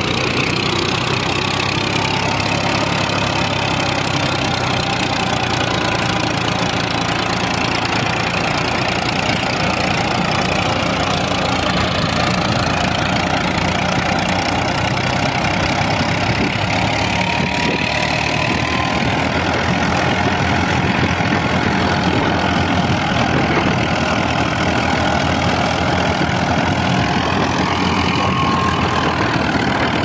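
Al-Ghazi tractor's diesel engine running steadily under load while it drives a wheat thresher, the thresher's whirring mixed in with the engine.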